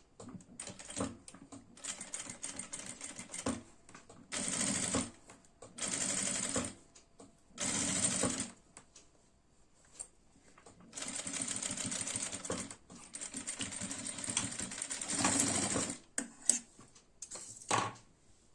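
Sewing machine stitching in a series of short runs of about a second or two, stopping and starting, with small handling clicks and rustles in the pauses.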